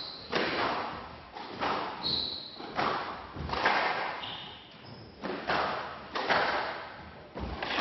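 Squash ball cracking off rackets and the front wall in a fast rally, sharp echoing hits about once a second. Short high squeaks of players' shoes on the court floor come in between.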